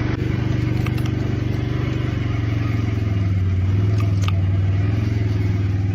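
A motor running steadily with a low hum and a fast, even flutter, starting abruptly.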